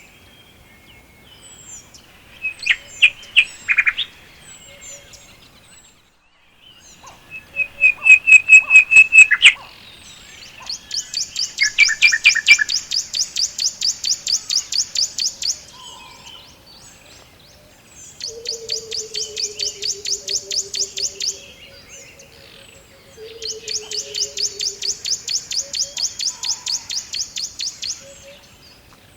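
Songbirds singing. There are short bursts of loud chirps at about 3 and 8 seconds in, then three long, rapid high trills of evenly repeated notes, each lasting several seconds. Under the second and third trills runs a low, falling series of short notes.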